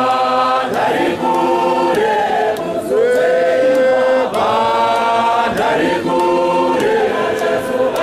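A men's choir singing a church chorus in Shona, unaccompanied, in long held notes.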